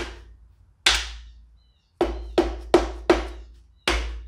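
Rubber mallet striking a connecting-rod cap on a Jeep 2.5L four-cylinder engine block to knock it loose. There are about seven sharp knocks: single ones at the start and about a second in, four quick ones about two seconds in, and one more near the end.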